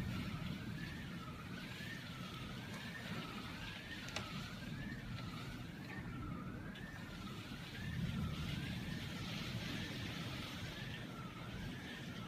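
Heavy rain pouring down in a cloudburst, a steady rushing noise with a low rumble that gusts louder about eight seconds in. Behind it an emergency siren wails smoothly up and down in pitch, about once a second.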